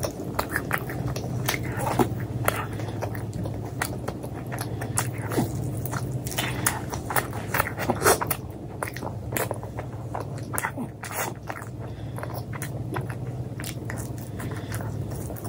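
Close-miked chewing and wet mouth sounds of a person eating paratha: irregular biting, smacking and soft crunching, over a steady low hum.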